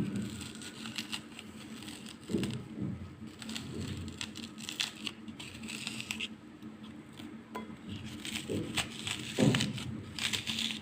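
Raw onion being hollowed out from the inside: irregular crisp crunching and scraping as the layers are cut and scooped out.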